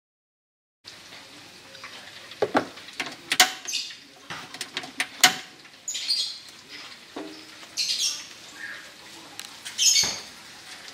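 Oil heating in a steel wok, with short hissing crackles, among sharp kitchen clicks and knocks.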